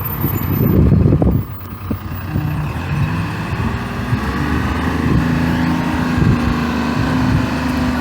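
A motor vehicle running on the road: low rumbling road and engine noise, louder in the first second and a half, then a steady engine drone from about three seconds in.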